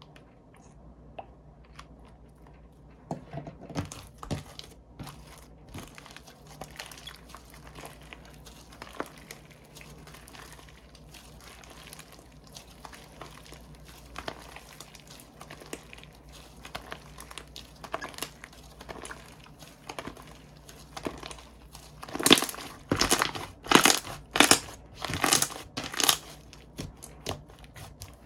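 Slime being played with by hand: faint scattered crackles and clicks, then, about three-quarters of the way through, a run of loud pops, roughly two a second, for several seconds.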